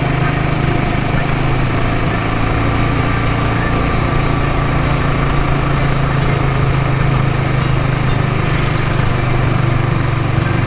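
Motorcycle engine running at a steady low hum while riding, with wind and road noise, heard from the rider's seat.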